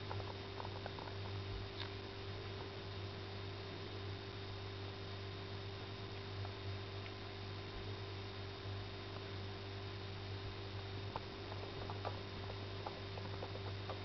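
Calico mother cat purring steadily while nursing her kittens, with a few faint small clicks near the end.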